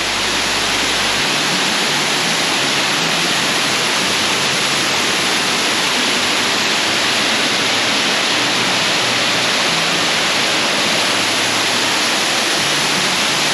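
Waterfall pouring: a loud, steady rush of falling water, loud enough to drown out speech.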